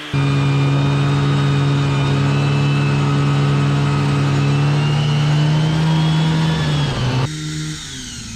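Snowmobile's two-stroke engine running hard at steady high revs, its pitch creeping up slightly. About seven seconds in it cuts off abruptly to a quieter engine sound.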